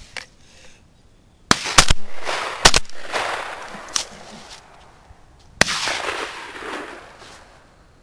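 Shotgun fire: a quick cluster of sharp, very loud shots between about one and a half and three seconds in, then another shot about five and a half seconds in, each trailing off in a fading echo.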